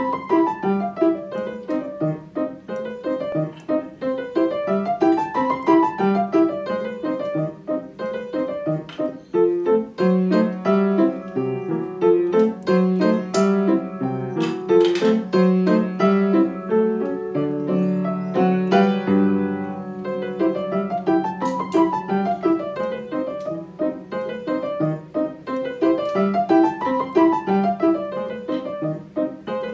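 Solo piano played continuously, with quick runs of notes climbing up and falling back several times over a lower accompaniment.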